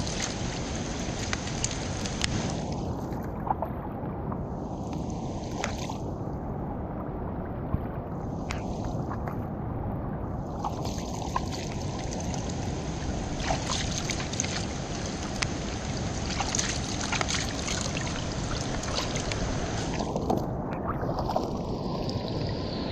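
Steady rain falling on the river shallows and the bank, with a constant patter and many small drop ticks and splashes.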